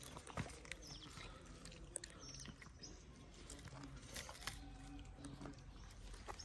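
Two cats crunching and chewing dry cat food from foam trays: faint, irregular crunching and clicking.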